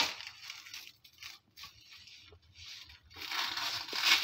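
Plastic cling wrap crinkling and crumpling as it is peeled off a bowl, in uneven rustles, with a louder stretch of crumpling about three seconds in.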